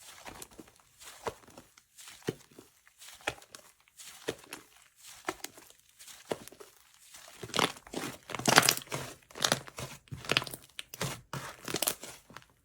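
Slime being squeezed and pressed by hand, giving irregular crackling, popping clicks; they come sparsely at first and grow busier and louder about halfway through.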